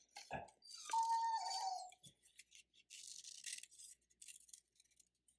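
Scissors snipping through construction paper in short cuts. About a second in, a puppy whines once, a high tone falling slightly over about a second.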